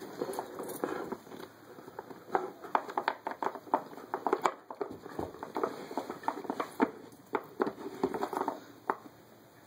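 A dog's nose and paws working a wooden Dog Fighter treat puzzle: irregular clicks and knocks of the wooden pegs and corks being nudged in their holes, with soft rustling between them.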